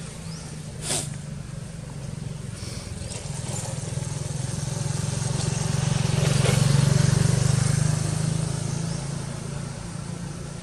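A motor vehicle's engine passing by: a low steady hum that grows to its loudest about two-thirds of the way through, then fades away. A single sharp click sounds about a second in.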